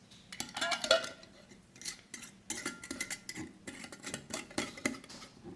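Lid being fitted and screwed onto a wide-mouth Ball glass jar: a few sharp, ringing clinks about a second in, then a run of small clicks and scrapes as the lid is turned down.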